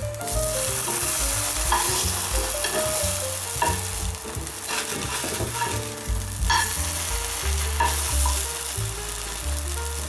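Bread slices sizzling steadily in hot oil in a frying pan. A metal spatula scrapes and taps against the pan a few times as the slices are flipped.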